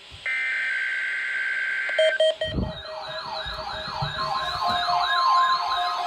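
Emergency alert tones: a two-second burst of steady high data tones, a few short beeps, then several overlapping warbling, siren-like alarm tones that sweep up and down about twice a second, with a steady tone joining about four seconds in.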